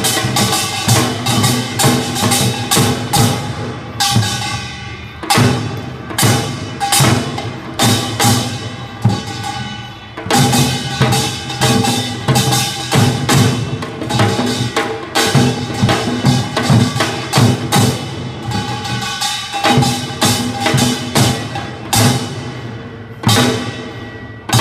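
Korean traditional percussion ensemble playing live: janggu hourglass drum and buk barrel drums beaten in a fast, dense rhythm, with metallic clanging ringing over the drums. The playing eases off briefly a few times before driving on.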